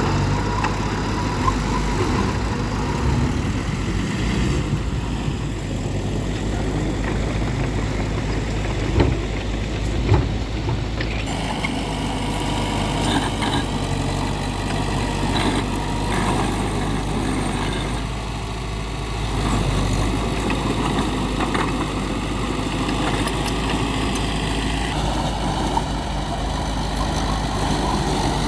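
Heavy diesel engines of earthmoving machinery, a bulldozer and dump trucks, running steadily. Two sharp knocks come about a third of the way through.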